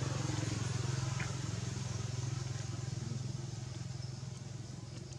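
A low, steady motor hum with a fast pulse, slowly fading, over a faint hiss.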